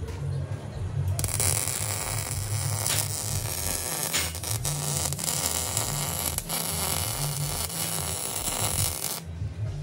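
MIG welder arc crackling steadily while welding a steel exhaust pipe under a car, starting about a second in and cutting off near the end.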